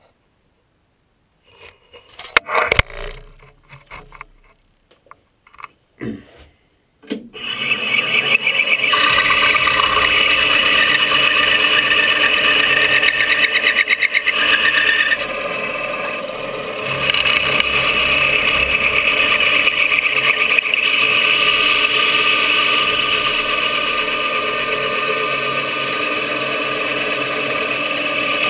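Handling knocks and clicks, then about seven seconds in a Grizzly benchtop mill starts and runs steadily, its end mill cutting the trigger pocket of a polymer 80% AR-15 lower. The cutting sound dips briefly partway through and then resumes.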